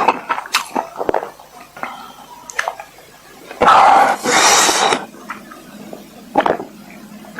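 Close-miked eating sounds: mouth clicks and crunching bites, with a louder rushing stretch of about a second near the middle.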